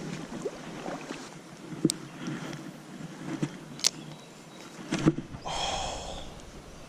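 Running creek water with a few sharp clicks and a brief rasping rustle near the end, from handling a fishing reel and tackle while casting and retrieving.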